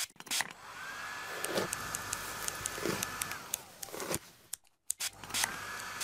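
Hair dryer sound effect: a blower whir with a steady whine that rises as it starts, cuts off after a few seconds and starts again about five seconds in. Short scissor snips come at intervals.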